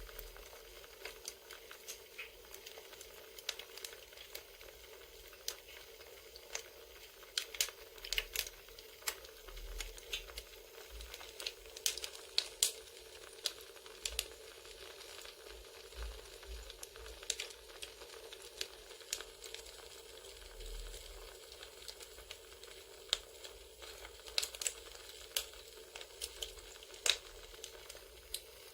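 Campfire crackling: irregular sharp pops and snaps over a soft steady hiss.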